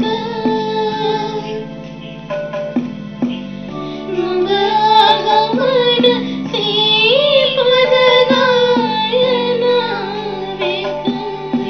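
A female voice singing Sinhala verse to a flowing melody, set to the tune of a popular song, over instrumental accompaniment with regular plucked strokes.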